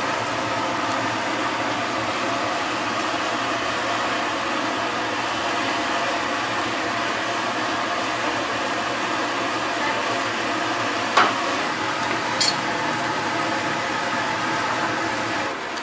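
Steady hiss and hum of gas stove burners running at a kitchen range, with faint sizzling from the pan. There are two short knocks about 11 and 12½ seconds in.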